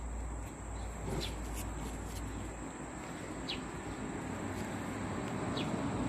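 Birds chirping a few short times over a steady high-pitched insect drone and a low rumble.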